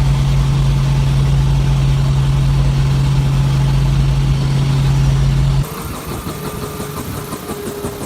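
Helicopter running: a loud, steady engine-and-rotor drone with a strong low hum. About five and a half seconds in it cuts to a quieter steady drone with a faint higher hum.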